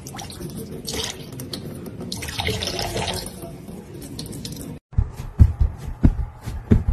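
Thin stream of water from a kitchen tap running into a stainless steel bowl in the sink, splashing louder twice as a cat bats at the stream with its paws. It cuts off suddenly about five seconds in, and a run of soft low thumps follows.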